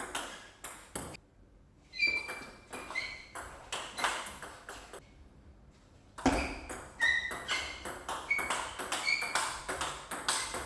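Table tennis ball being hit back and forth in a topspin drive rally: sharp, ringing clicks of the celluloid ball off rubber rackets and the table, several a second. The clicking breaks off briefly twice, about a second in and about five seconds in, then comes thick and fast.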